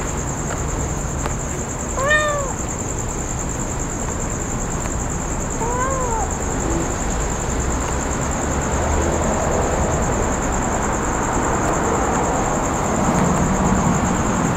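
Young kitten meowing twice, about four seconds apart, each a short mew that rises and falls in pitch.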